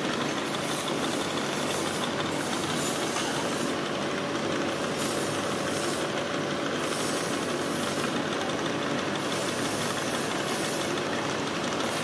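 Manual milling machine running, its end mill cutting sprocket teeth into a metal blank held on a dividing head: a steady machining noise with a faint steady tone.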